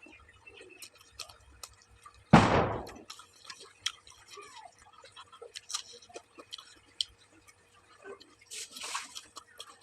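Close-up eating sounds: chewing with small wet mouth clicks and smacks. A loud, brief bump about two seconds in, and a softer rustle near the end.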